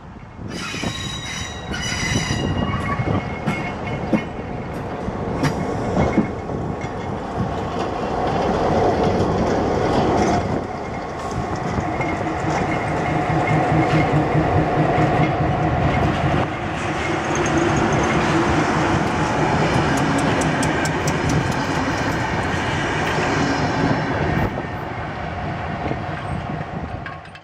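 Diesel freight locomotive passing close by at low speed: engine running, with wheels clacking over rail joints and squealing. Two short horn blasts sound near the start.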